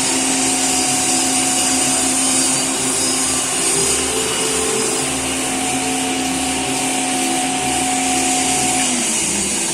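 Victor metal lathe running with its spindle turning: a steady machine hum with a whine from the headstock gearing, running smoothly. Near the end the main tone drops in pitch and stops.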